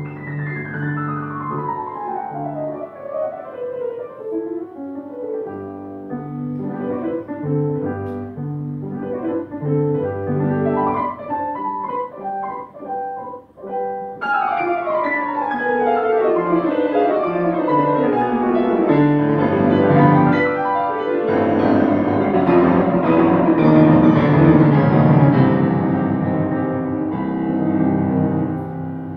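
Solo classical piano on a Steinway grand: quick falling runs over repeated low notes, a brief break about halfway, then a louder falling run that builds into dense, full chords before easing off near the end.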